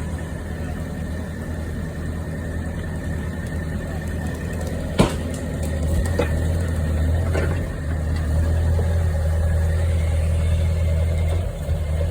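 Large engine running steadily with a low hum, with one sharp knock about five seconds in and two fainter knocks shortly after.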